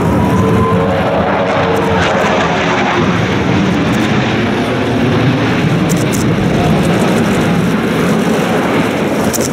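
A formation of J-10 fighter jets flying past, their jet engines making a loud, steady noise.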